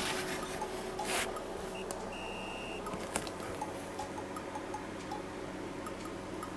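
Faint, plinky background music with small ticking notes, with a brief rustle of handling about a second in and a short steady high beep a little after two seconds in.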